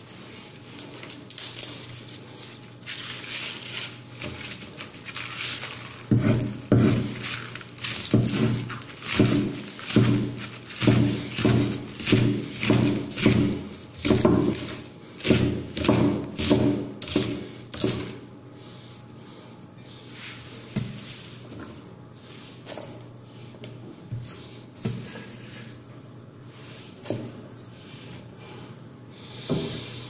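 A Chinese cleaver chopping spring onions on a wooden cutting board. A steady run of blade strikes knocks into the board, about two a second, from about six seconds in until a little past the middle. After that come only scattered, quieter knocks.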